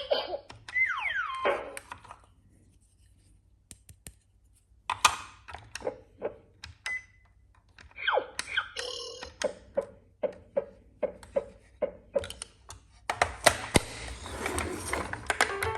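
Cartoon sound effects between music cues: a short falling whistle-like glide, then scattered clicks and knocks, and a run of evenly spaced pitched taps about two a second, ending in a busy clatter.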